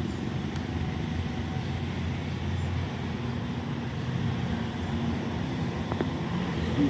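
Steady low rumble of outdoor background noise, with a faint click about six seconds in.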